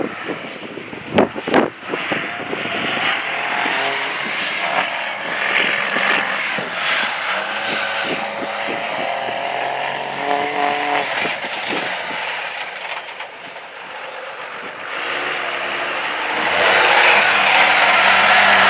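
Lifted GMC mega truck's engine revving up and down as it climbs over dirt mounds, with a few sharp knocks about a second in. The engine gets louder near the end as the truck comes closer.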